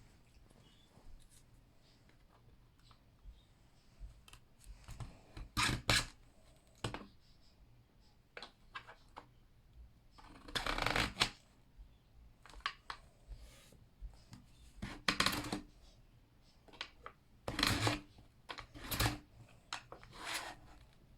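Irregular handling noise from a plastic toy screen-printing kit: short scrapes, rustles and clicks coming in scattered bursts, some lasting about a second.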